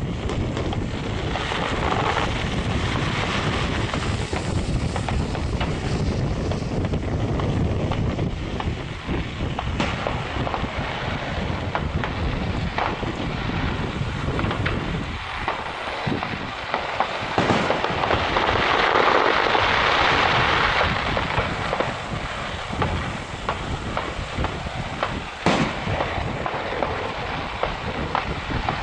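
Aerial firework shells bursting in a continuous barrage of bangs and crackle. A louder, denser stretch comes about two-thirds through, and a couple of sharper single bangs stand out in the second half.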